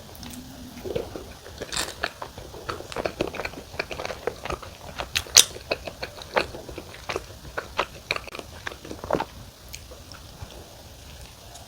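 Close-up chewing of crusty wood-fired pizza crust, with an irregular run of crisp crunches and clicks that thins out about three-quarters of the way through.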